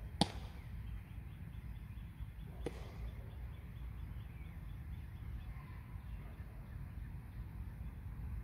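A baseball popping into a leather glove, sharply once just after the start and again, fainter, about two and a half seconds later, over a low steady rumble.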